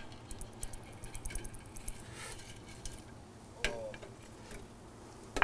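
Faint crackling sizzle of hot oil in a deep fryer, with a few light clinks of a wire spider strainer and a ceramic plate as a battered, half-fried blooming onion is slid from the plate into the strainer. One clink about three and a half seconds in is a little louder.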